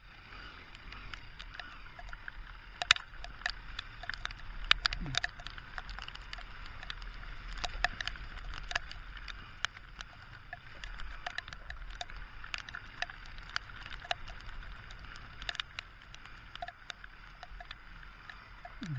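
Raindrops ticking sharply and irregularly on a helmet-mounted camera over a steady hiss of tyre spray, as a motorcycle rides through standing water on a rain-soaked street.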